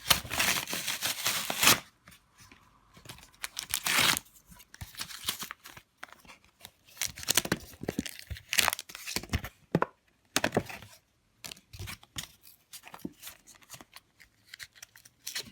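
Plastic-and-card blister pack being torn open by hand: loud ripping in the first two seconds and again about four seconds in, then scattered crinkling and clicks of the plastic packaging that thin out near the end.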